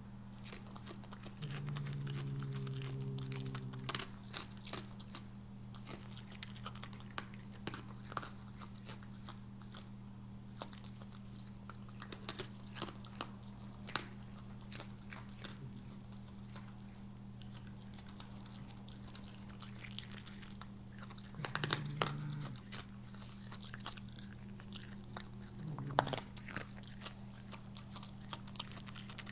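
Raccoon chewing dry cat food close to the microphone, many irregular sharp crunches of kibble, over a steady low hum. A louder low drone comes in about a second and a half in for a couple of seconds, and twice more briefly later on.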